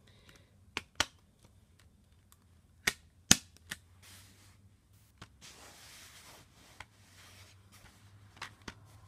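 Plastic clicks and clacks of a Blu-ray steelbook's hinged clear disc tray being flipped and the case handled and closed: about nine sharp clicks scattered through, the sharpest a little past three seconds in, with soft rustling of handling in between.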